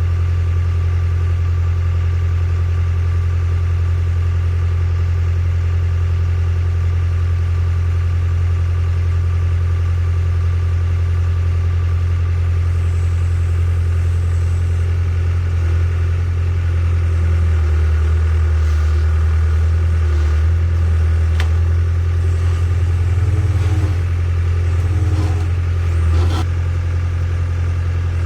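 Diesel engine of a Hitachi EX60 excavator running steadily at a constant speed. From about halfway through, the engine note dips and wavers for several seconds, as if loaded by the hydraulics. A couple of sharp clicks come near the end.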